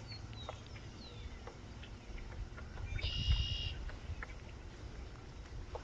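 Woodpecker pecking at wood: faint, irregular single taps a fraction of a second apart. A short bird call of about two-thirds of a second comes about three seconds in, and faint falling whistles come in the first second.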